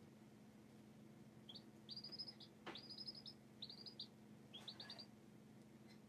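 Baby chicks peeping: four quick runs of short, high peeps between about one and a half and five seconds in, over a faint steady low hum.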